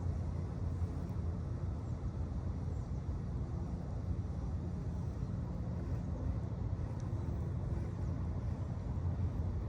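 Steady low rumble of a running engine, even throughout with no change in pitch.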